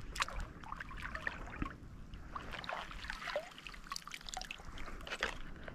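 Shallow, knee-deep seawater trickling and lapping, with scattered small clicks and splashes.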